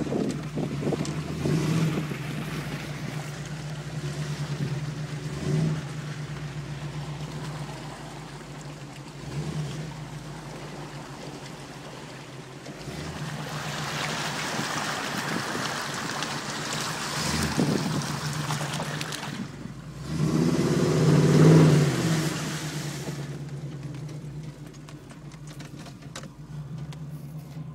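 Chevy 355 cubic-inch small-block V8 of a mud truck, heard from inside the cab, running steadily and revving up several times, with one longer, loudest rev about three-quarters of the way through. Stretches of rushing noise come in the middle as the truck ploughs through mud and water.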